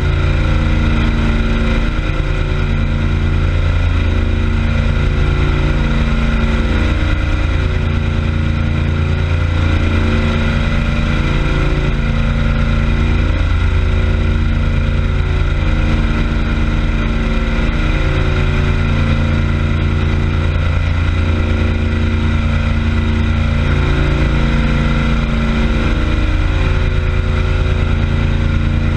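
Motorboat engine running steadily at speed, running smoothly, with the churning prop wash of the wake.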